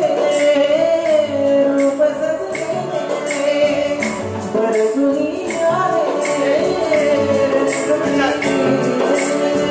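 Live band playing a song: a male singer on a microphone over an electronic keyboard, with a steady percussion beat of jingling strokes and low drum pulses.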